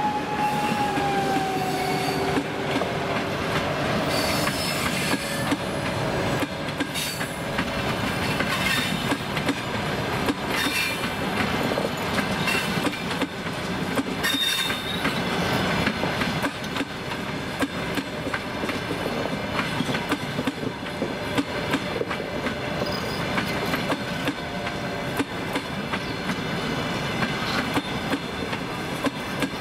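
A departing passenger train's coaches rolling past, their wheels clicking steadily over the rail joints, with a few brief high squeals from the wheels. Right at the start a falling whine fades as the electric locomotive moves away.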